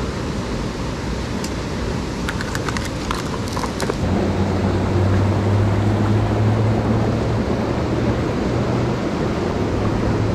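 Shallow creek water rushing over rocks, a steady hiss. A few light clicks sound in the first few seconds, and from about four seconds in a steady low hum joins the water.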